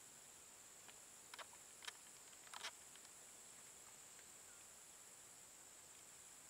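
Near silence: a faint, steady, high-pitched insect chorus, with a few faint clicks in the first three seconds.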